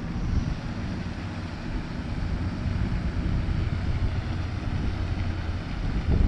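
Low, fluctuating rumble of wind buffeting the microphone, with faint outdoor background noise.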